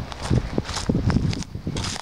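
Footsteps crunching over dry cut brush and twigs, irregular thumps with crackling, over a low rumble of wind on the microphone.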